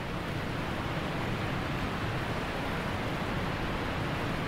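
Steady rushing of heavy water pouring from a dam's spillway gates into the river below, an even, unbroken roar.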